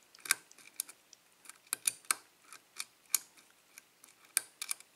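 Metal lock pick working the pin stacks of a Schlage six-pin pin-tumbler cylinder during single-pin picking: a run of small, sharp, irregular clicks, more than a dozen of them.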